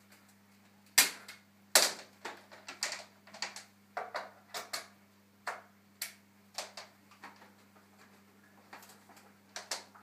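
Sharp, irregular plastic clicks and clacks, about two a second, the loudest two about a second in, from handling a Panasonic MC-E47 upright vacuum cleaner and its power cord while the machine is switched off.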